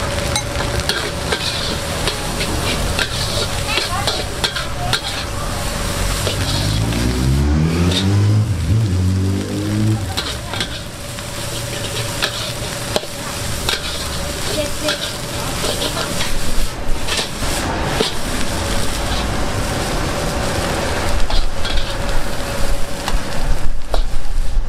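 Food stir-frying in a wok: steady sizzling with repeated clanks and scrapes of a metal spatula against the pan. An engine briefly rises in pitch about seven seconds in.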